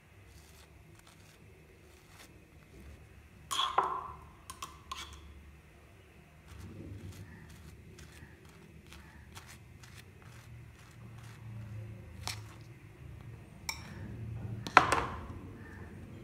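Table knife spreading mayonnaise on a slice of soft white bread: faint scraping and rustling, broken by two sharper knocks, one about four seconds in and one near the end.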